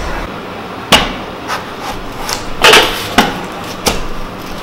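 A few sharp knocks and clatters as a whole watermelon is handled and set down on a steel plate on a table.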